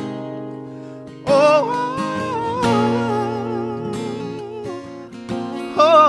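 A man singing soul-style over acoustic guitar accompaniment. The guitar chord rings alone at first; about a second in the voice comes in, holding long notes with vibrato, and it rises again to a loud high note near the end.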